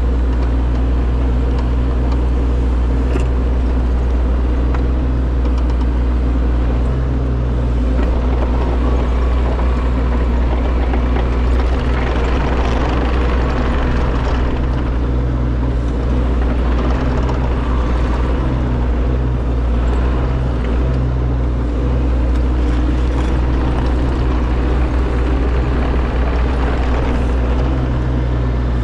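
Heavy construction machine's diesel engine running continuously and loud, its note shifting slightly as the load changes.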